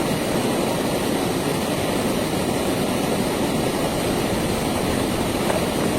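Stream water rushing close by in a steady, even flow; it starts and stops abruptly with the shot.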